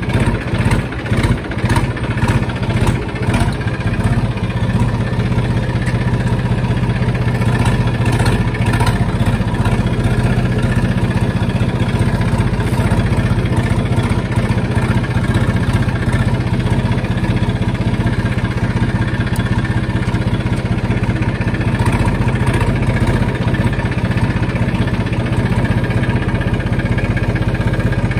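Vehicle engine idling steadily, with a few irregular knocks in the first few seconds.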